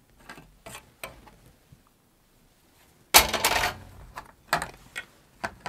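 Large plastic board compass and set square knocking and clattering against the whiteboard tray as they are picked up: scattered clicks, a loud rattle about three seconds in, then a few sharp clicks.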